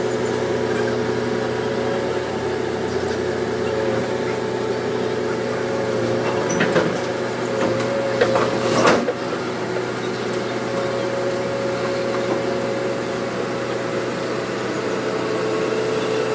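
Volvo EC210 crawler excavator's diesel engine running steadily under load, with a few sharp knocks between about seven and nine seconds in.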